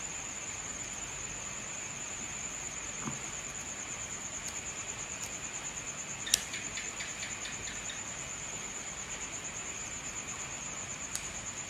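Steady, evenly pulsing high-pitched trill of an insect. About six seconds in comes a sharp click and then a few faint ticks as a metal split ring is worked round onto the jig.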